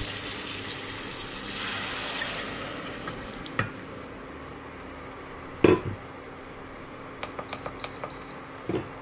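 Onions sizzling in hot oil in a steel pot, the sizzle dying down about three seconds in as a watery spice paste is poured in. Then a sharp clank of the steel bowl against the pot, a few light clicks with three short high beeps, and a dull knock near the end.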